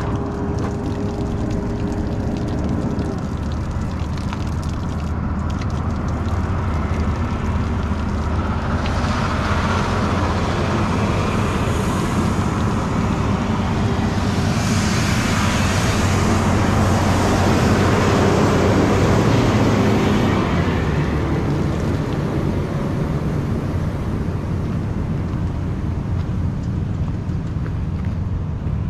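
Steady low rumble of a vehicle's engine and road noise. A louder hiss swells up in the middle for about ten seconds, then fades back.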